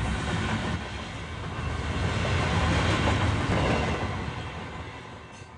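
Train running on rails, a steady rumble that fades away over the last second or two.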